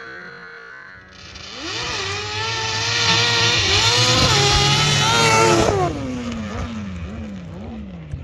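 A motorcycle engine revving hard: its pitch climbs and holds high for about four seconds, wavering as the throttle rises and dips. Then the revs drop off suddenly and wind down in a few falling swoops as it fades.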